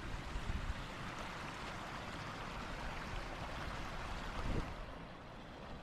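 Freeman Hill Brook flowing under a footbridge: a steady rushing of water, which thins out a little near the end, with a couple of low thumps.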